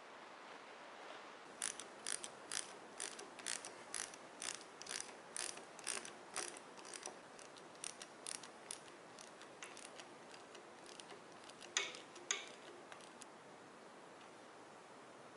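Socket ratchet clicking in short strokes as bolts are run in on an engine: quick clicks about three a second for several seconds, then slower, with two sharper clicks a little after the middle.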